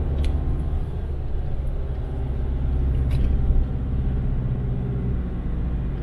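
A 2.5-litre diesel pickup engine pulling hard and steadily in a low gear up a steep grade, with the throttle held well open. Two faint clicks come near the start and about three seconds in.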